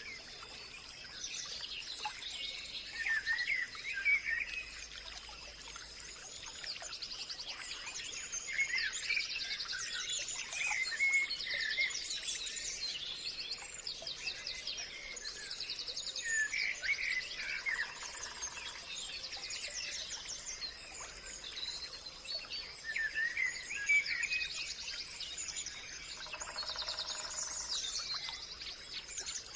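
Several songbirds singing and chirping over one another in quick warbles and trills, with a steady thin high whine under them throughout. A lower, buzzier call comes in briefly twice, the second time near the end.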